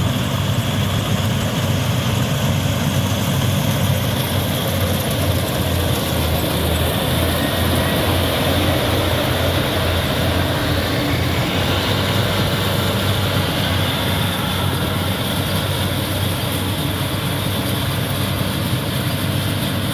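Yanmar YH850 rice combine harvester running steadily, its engine and machinery giving a continuous loud, low hum.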